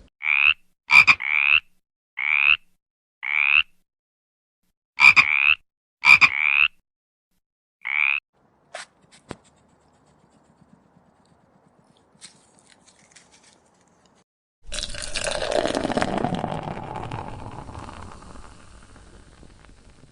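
A series of about ten short animal calls, each rising slightly in pitch, some in pairs, over the first eight seconds. Then, after a few faint clicks, a longer rough sound starts suddenly about fifteen seconds in and fades away.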